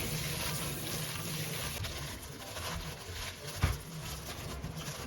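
Water running steadily, with one sharp knock about three and a half seconds in.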